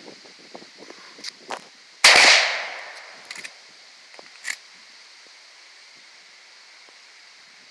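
A single gunshot about two seconds in, its echo dying away over about a second. A few small clicks come before it, and one sharp click follows about two and a half seconds later.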